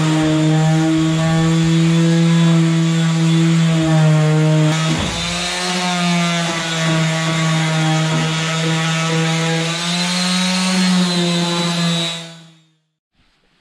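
Handheld electric power tool running steadily with a loud motor whine, its pitch wavering slightly as it works the bodywork, then switched off and winding down near the end.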